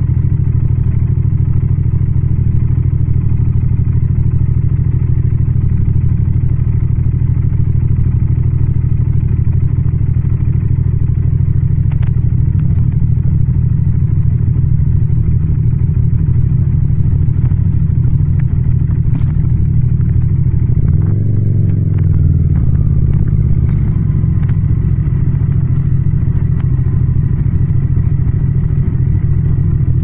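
Yamaha MT-07's 689 cc parallel-twin engine running steadily under way, with a brief dip and shift in pitch about two-thirds of the way through before it settles again. Scattered light clicks come through in the second half.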